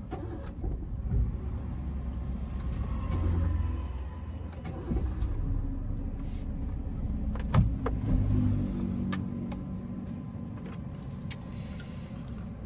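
Suzuki car engine running while stationary, heard from inside the cabin. The revs rise briefly about three seconds in and again near eight seconds. Keys jangle and click in the ignition throughout.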